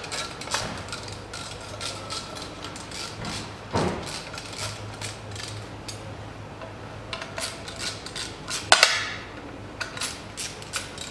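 Screwdriver driving the screws that fix a thin steel brake dust shield to a Chery Amulet's front steering knuckle: irregular metallic clicks and scrapes of the tip on the screw heads and sheet metal, with a sharper ringing clank about nine seconds in.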